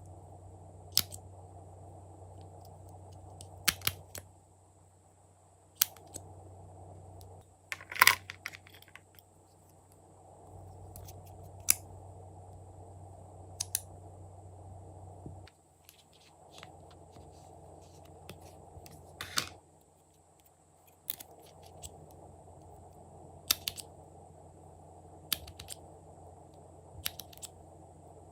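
Glossy slime being pressed and stretched by hand, giving sharp, irregularly spaced clicks and pops, about a dozen in all, over a steady low background hum.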